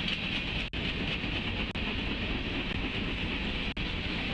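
Freight train cars rolling steadily past on the track, a continuous rumbling rush of wheels on rail, with a few very brief cut-outs in the sound.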